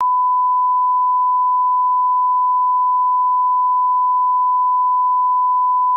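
A steady, unbroken pure test tone at about 1 kHz, held at one level.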